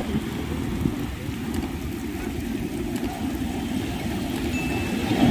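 Surf breaking and washing up the beach, heard as a steady low rumble with wind buffeting the microphone.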